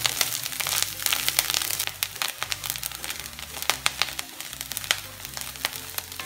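Grated coconut frying in a little oil in a wok, sizzling with a light crackle, while a wooden spatula scrapes and taps against the pan as it is stirred. The clicks of stirring are busiest in the first two seconds and then thin out.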